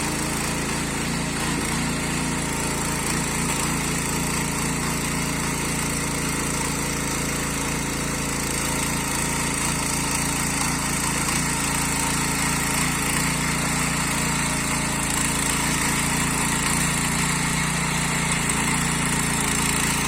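Kaan 26s garden tiller engine running steadily while its tines work medium-hard soil, growing slightly louder toward the end.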